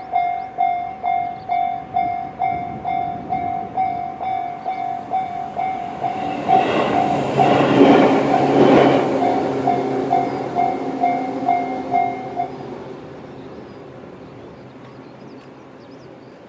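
Electronic level-crossing warning bell of the Tobu 'sound C' type dinging about one and a half times a second. Midway, a Tobu 10000-series electric train passes over the crossing with wheel clatter, loudest about eight seconds in. The bell stops about twelve seconds in and the train's sound fades away.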